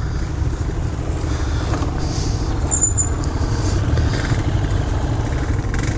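Kawasaki Bayou ATV's single-cylinder four-stroke engine idling steadily. A brief high chirp sounds about three seconds in.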